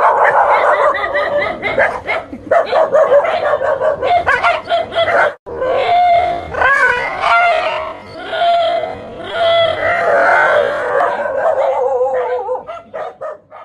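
Dogs barking and yelping almost without a break, with one short gap about five seconds in, aggressively barking at a life-size toy tiger they take for a threat.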